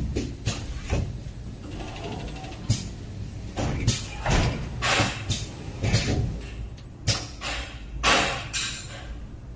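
Automatic silicone tube O-ring cutting and bonding machine running, its pneumatic cylinders clacking and air hissing in short bursts at irregular moments over a steady low machine rumble.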